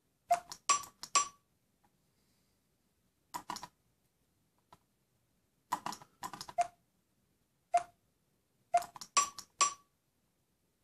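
Sharp clicks from a large push-button accessibility switch, some with a brief ringing note, coming in five short groups of one to several clicks each. Each press steps the scanning crosshairs across the tablet screen.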